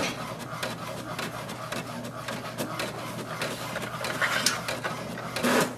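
HP DeskJet 2842e inkjet printer printing its post-setup welcome page: mechanical running with rapid clicking as the carriage and paper feed work, and a couple of louder swishes near the end as the sheet comes out.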